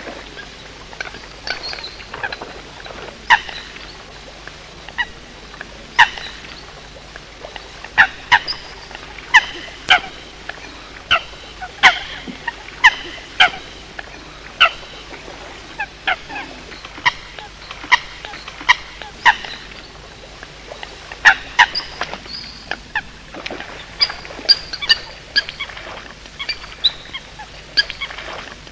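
Eurasian coot calls, as used in a recording played to lure coots at night: short, sharp honking notes repeated irregularly, about one or two a second, over a faint low hum.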